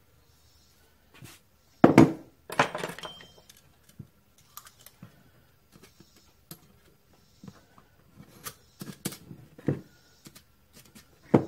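Steel muffler tube and its outer shell being handled and fitted together on a wooden workbench: a couple of loud knocks about two seconds in with a brief rattle after them, then light scattered clinks and taps.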